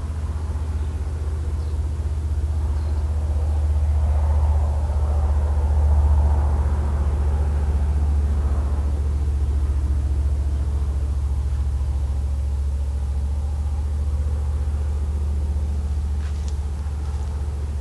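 A steady low rumble that swells about four to six seconds in, with a few faint clicks near the end.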